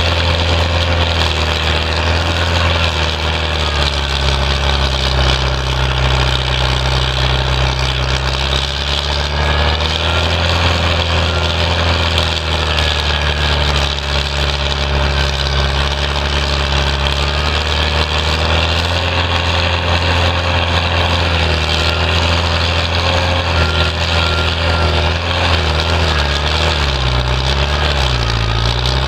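Vermeer 1152 stump grinder running under load as its spinning cutter wheel chews through a poplar stump. The engine note is steady and loud, sagging slightly in pitch a few times as the wheel bites in and then recovering.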